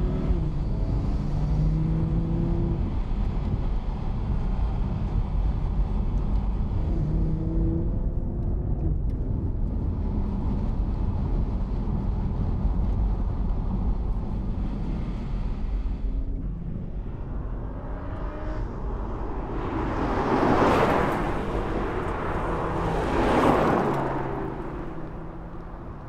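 Audi TT RS's 2.5-litre turbocharged five-cylinder engine driving on the road, its revs rising and settling again as it pulls. Near the end two louder swells of noise come and go as the car passes close by.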